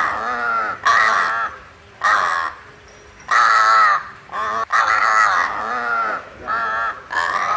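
Crow cawing repeatedly: about eight harsh, wavering caws in quick succession, each around half a second long.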